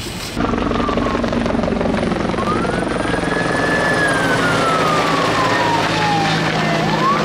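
Firefighting helicopter running, with a siren wailing over it: one slow rise and long fall in pitch, then starting to rise again near the end.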